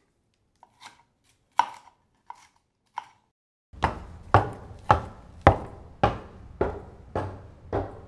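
A few light knife taps on a cutting board. Then, from about four seconds in, steady footsteps on wooden stair treads, roughly two heavy steps a second.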